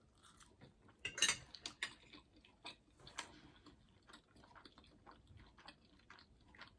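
Faint eating sounds: a scattered run of small clicks and clinks of a utensil against a dish, with chewing, loudest just after a second in.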